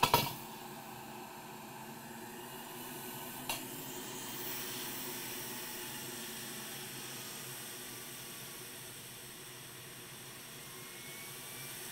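Soft, steady hiss and sizzle of flux boiling under a soldering iron tip as the pins of a surface-mount switching voltage regulator chip are soldered to the circuit board. A sharp click comes right at the start and another at about three and a half seconds.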